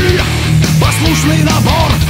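Old-school heavy metal rock and roll: distorted electric guitars, bass and drums, with a melodic lead line that bends up and down in pitch.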